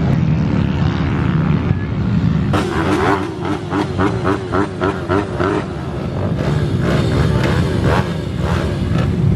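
Pit bike engine running, with a run of quick rises and falls in engine speed from about three seconds in, continuing less regularly toward the end.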